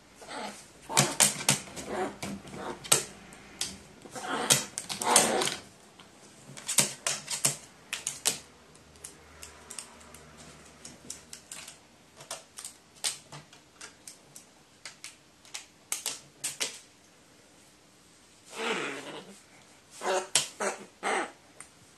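Pet crow making rapid, irregular sharp clicks and taps in clusters, densest in the first few seconds and again near the end.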